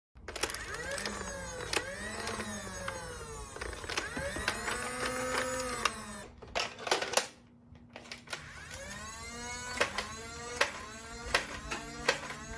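Electric motors of motorized blasters spinning up and winding down several times, a whine rising and falling in pitch. Sharp clicks come in around the middle and in quick succession near the end.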